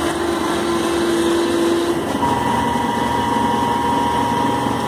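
Syil C6-B mini CNC lathe running with its chuck spinning, a steady mechanical whir with a motor whine. About two seconds in, a lower steady hum stops and a higher-pitched whine takes over.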